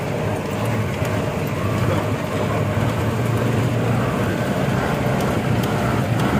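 Jeep engine running steadily, a constant low hum under rumbling road noise.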